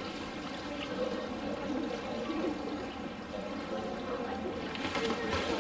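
Steady rush of running water, with faint indistinct voices in the background.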